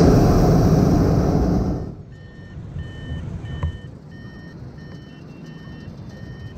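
Hot air balloon propane burner firing in one loud blast of just under two seconds, then shutting off. After it, short electronic beeps repeat about twice a second.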